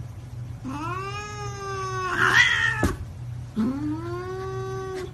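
A domestic cat yowling: two long drawn-out meows, the first starting about a second in and turning rough and loudest in its middle, the second near the end.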